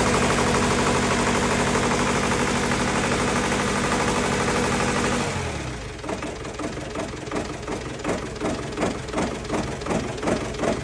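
Diesel generator engine running steadily, then cutting off about five seconds in, its note sinking away. A softer rhythmic pulsing about twice a second follows.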